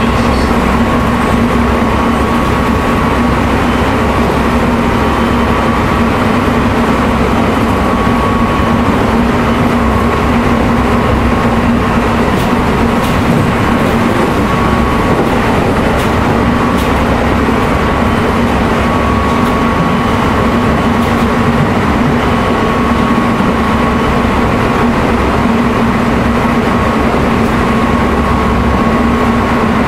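Running noise inside a Keisei 3700 series electric train (Toyo Denki GTO-VVVF) cruising at a steady speed: a constant rumble of wheels on rail under a steady whine that holds its pitch, with a few faint clicks about halfway through.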